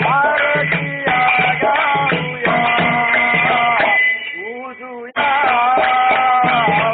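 Devotional song music: a melodic line over a regular low drum beat. It drops quieter about four seconds in and cuts back in sharply a second later.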